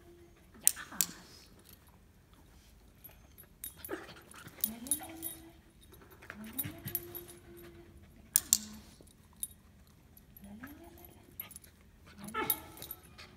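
Dog whining in short cries that rise and then hold, about five times, with a few sharp clicks between them.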